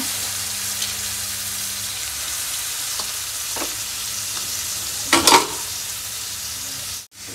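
Grated carrots frying in hot ghee in an aluminium kadhai: a steady sizzle, with a brief louder noise about five seconds in. The sound cuts out suddenly near the end.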